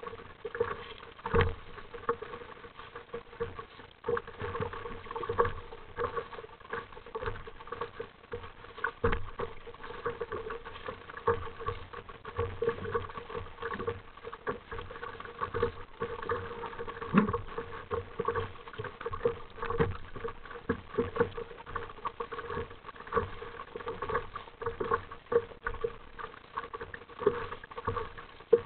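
Sea water lapping and slapping against the plastic hull of an RTM Mambo sit-on-top kayak: an irregular run of small splashes and knocks.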